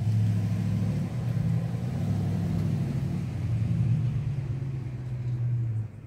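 An engine running, its pitch rising at the start and shifting a few times, then cutting off suddenly near the end.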